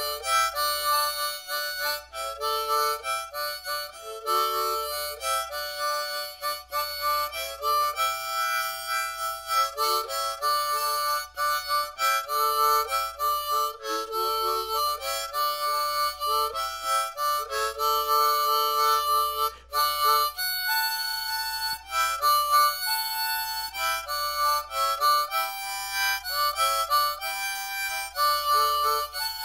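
Harmonica playing a tune of chords and changing notes, close-miked on a condenser microphone.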